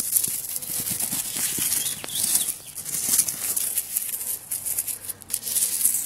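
Rustling and scuffling in dry grass and leaves as a puppy plays and a hand moves through the lawn. It comes in several bursts, with scattered sharp clicks.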